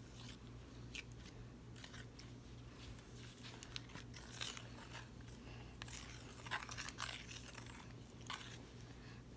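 Irregular soft crunches and crackles, close and scattered, the loudest a cluster about six to seven seconds in, over a steady low hum.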